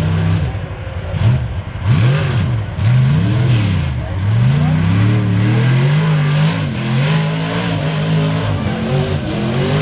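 Chevy S-10 Blazer engine revving hard while pushing through mud: the revs climb and drop several times in quick succession, then hold high and fairly steady for the last few seconds.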